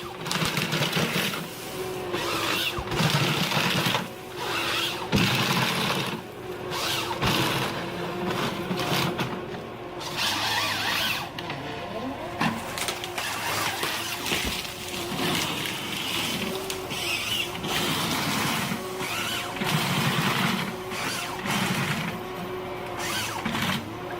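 Ponsse Ergo forest harvester working: a steady engine and hydraulic hum, with stretches of louder noise from the harvester head cutting and feeding logs that come and go every second or two.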